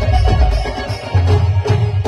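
Loud Nagpuri dance music played on a sound system, with a heavy, pounding bass beat and drum strikes.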